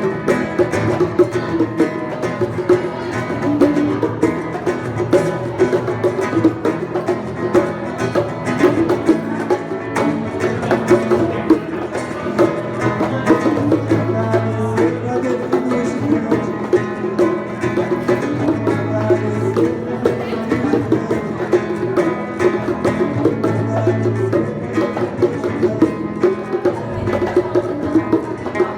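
Live acoustic music: an acoustic guitar playing with hand percussion such as bongos, in a steady rhythm.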